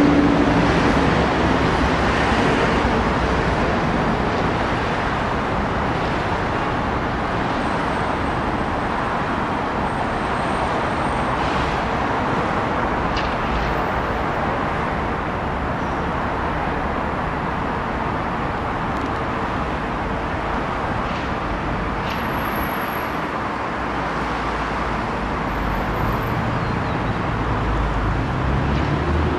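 Steady city traffic noise, loudest at the start and easing off, with faint steady tones fading out in the first second. A low rumble from a nearby vehicle rises near the end.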